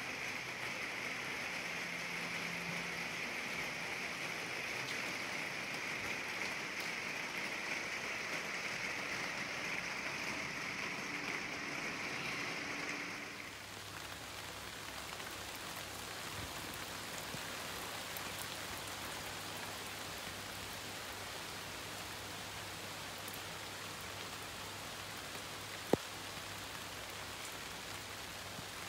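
Heavy rain drumming steadily on a polycarbonate conservatory roof. About thirteen seconds in it gives way to a softer, more even hiss of rain falling on a wet street and paving. A single sharp click comes a few seconds before the end.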